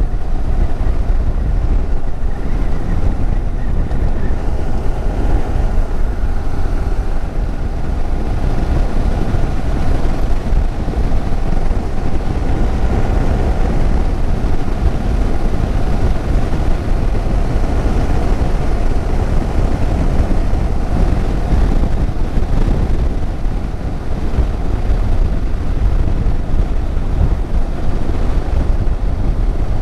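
Motorcycle riding at a steady pace on an open road: the engine's steady drone under wind rushing over the microphone.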